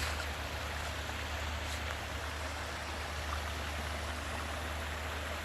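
Stream water rushing over rocks, a steady even rush with a low rumble underneath.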